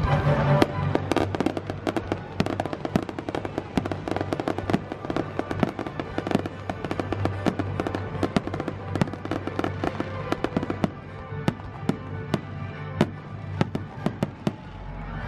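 Fireworks show: aerial shells bursting overhead in a rapid run of sharp bangs and crackles, several a second, with music playing underneath.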